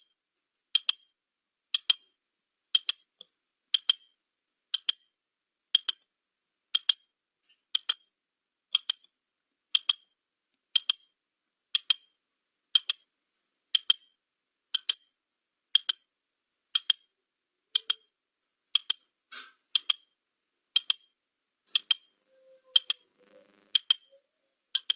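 Clock-style ticking, about one sharp tick a second: a countdown timer sound effect running out the 30-second answer time.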